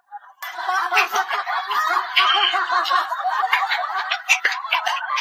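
Snickering, chuckling laughter that starts abruptly about half a second in and runs on, with a few sharp clicks near the end.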